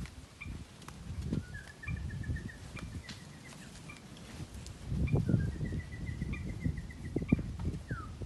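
A bird gives two rapid trilled calls, each rising and then holding level, the second ending in a falling note, over a faint short chirp repeating about once a second. Low rustling and thumps of movement close by, loudest about five seconds in.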